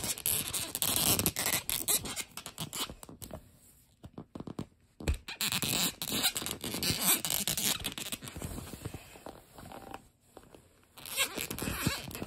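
Hard plastic action-figure parts scraping and rasping against each other in bursts as the tail piece is pushed and twisted at its socket. There are short lulls about four seconds and ten seconds in.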